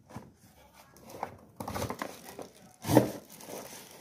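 Cardboard box being handled, rustling and scraping, with one sharp knock about three seconds in.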